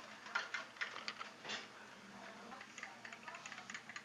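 A run of light clinks and ticks, a few sharper ones in the first second or so and quicker small ticks near the end, as a creamy cocktail is strained from a shaker into a stemmed martini glass.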